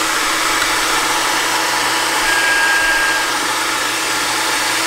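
A small electric motor whirring steadily, with a faint thin whine for under a second a little past the middle.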